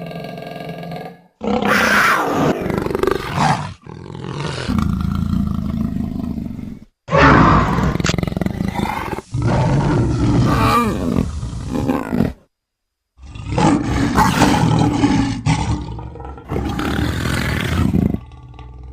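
A run of loud big-cat roars and snarls, about six calls of two to three seconds each with short breaks between, dubbed in as a cartoon werecat's voice from big-cat recordings. The roars are preceded by a quieter held pitched sound.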